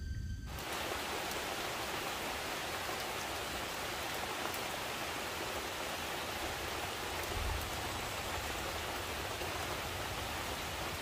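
Steady rain falling, an even dense hiss that starts suddenly about half a second in.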